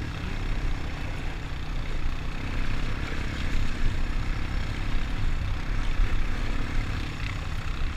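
ATV engine running steadily while riding along a trail.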